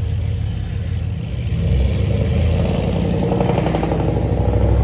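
A vehicle engine running with a fast low pulse, growing louder about a second and a half in.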